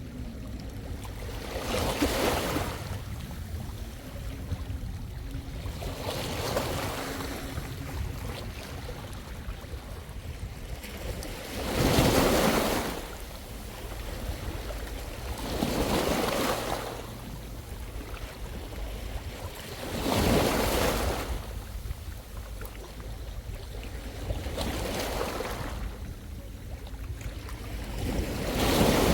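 Small sea waves breaking and washing up the shore about every four seconds, each wash swelling and fading, over a steady rumble of wind on the microphone.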